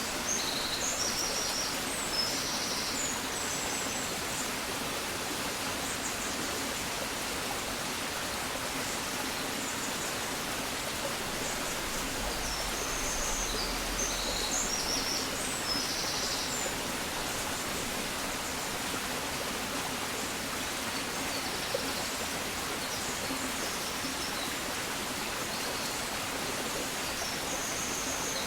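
Birds chirping in short clusters of high notes over a steady, even hiss of outdoor background noise, the kind of rushing from water or wind.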